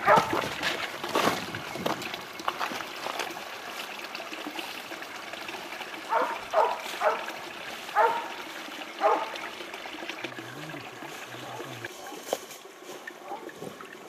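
Hunting dog barking while it holds a wild boar at bay: a few barks at the start, then a run of five barks in the middle. A stream trickles underneath.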